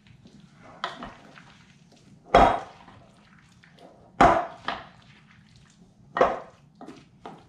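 A wooden spoon stirring a fruit salad in a glass bowl, knocking against the bowl about seven times. The loudest knocks come about two and a half and four seconds in.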